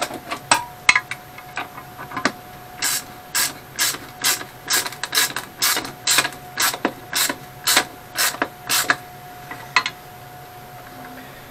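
Socket ratchet clicking in short back-swings, about two a second, with a few sharper clicks before and one after. It is tightening the bolts that hold the lathe bed down to the chip pan and bench.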